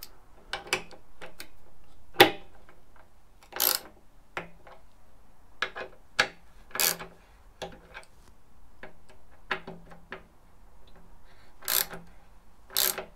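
Hand tool nipping up the small tank-ring screws: irregular metallic clicks with a few louder, short scraping strokes.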